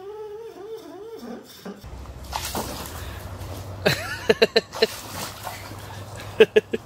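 A sleeping dog whimpering in its sleep, a wavering high whine that rises and falls, then a dog barking in short, sharp yaps: a quick run of them about four seconds in and three more near the end.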